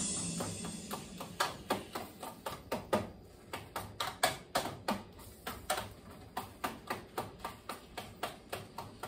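A spoon knocking repeatedly against a pot while mashing boiled potatoes, about three sharp knocks a second, with fading background music in the first second or so.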